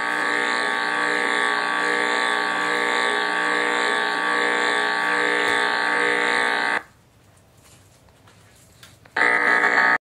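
Electric zapping buzz sound effect from a high-voltage prank app on an iPad 2, played through the tablet's speaker as the screen shows sparks under the kitten's paw. The steady buzz cuts off about seven seconds in and starts again near the end.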